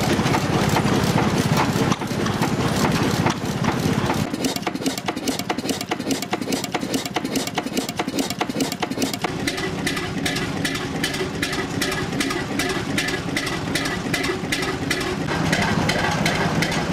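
Old stationary farm engines of the 1930s–40s running on display, a steady beat of evenly spaced firing knocks, several a second. The mix of engines changes a few times.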